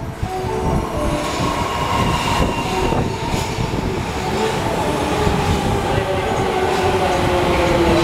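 Osaka subway 30000 series train pulling into the underground station and slowing, a loud rumble of wheels on rail with a whine that sinks a little in pitch near the end as it brakes.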